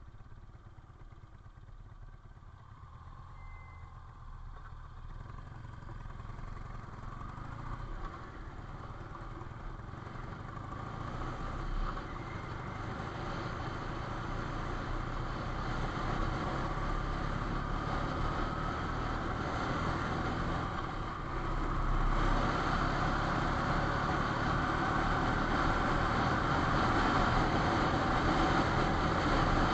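Motorcycle being ridden along a road, its engine running steadily under wind and road noise that grow louder as it picks up speed. Partway through, a faint whine climbs in pitch.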